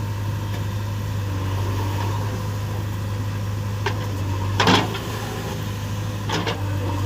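Heavy diesel engine running steadily with a low drone, broken by a few sharp knocks, the loudest about two-thirds of the way through.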